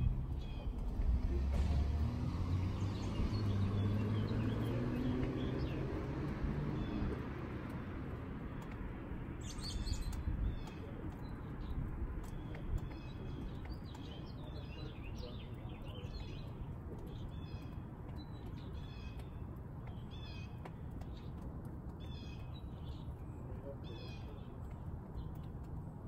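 Small birds chirping outdoors in short repeated calls over a steady low background rumble. For the first several seconds a low drone rises in pitch and fades away, and there is a brief rustling burst about ten seconds in.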